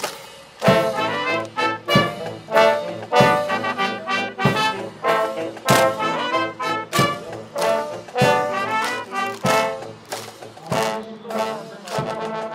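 Background music with stacked pitched notes over an evenly spaced beat, about one strike every second and a bit.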